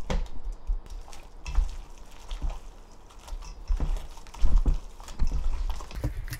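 Hand kneading and squeezing wet seaweed soaked in fish sauce with minced garlic in a stainless steel bowl: irregular wet squelching and squishing, with a spoon clicking against the bowl at the start.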